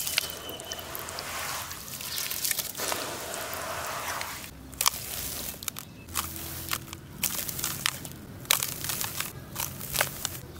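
Wet charcoal paste being squished and swished by hand in a basin of water, a continuous slushy noise. About halfway through it gives way to dry charcoal being crumbled and dropped into the basin: separate sharp crunches and crackles with short pauses between them.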